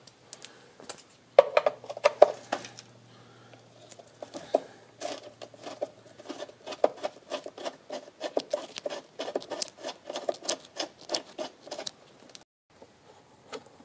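Screws being undone from an electric scooter's deck with a hand screwdriver: a long run of quick, irregular clicks and scrapes.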